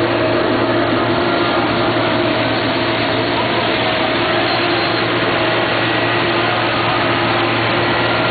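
City street traffic: engines of police and city trucks driving past, a steady din with a constant hum.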